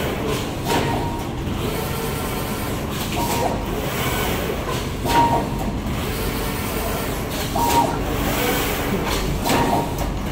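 Automatic screen printing machine running on a long fabric-printing table: a steady mechanical rumble and whirr from the moving print carriage. Short hisses and brief high tones come back every two seconds or so.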